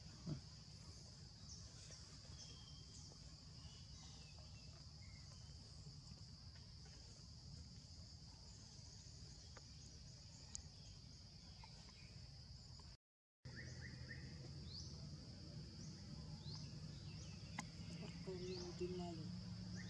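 Faint outdoor ambience of a steady, high-pitched insect drone, with scattered short high rising chirps over it. The sound cuts out completely for about half a second around two-thirds of the way through.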